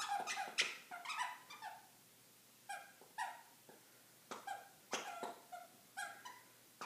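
Squeaky plush toy squeaked over and over as a standard poodle puppy chews it: short, pitched squeaks in quick bunches of two to five, with short pauses between the bunches.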